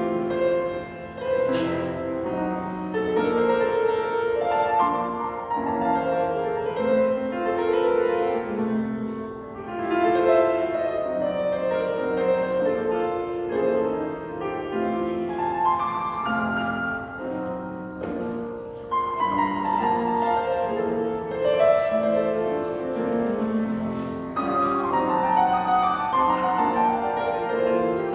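Grand piano played solo: a flowing classical-style piece with sustained notes and several rising runs up the keyboard.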